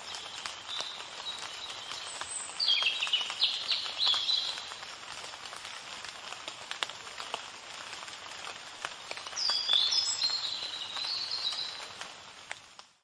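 A songbird singing two phrases of quick, high chirps, about two and a half seconds in and again about nine and a half seconds in, over a steady hiss; the sound fades out at the end.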